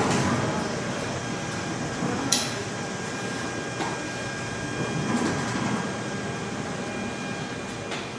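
Steady hum and hiss of machinery in an indoor animal enclosure, with one sharp click a little over two seconds in and a few soft knocks later.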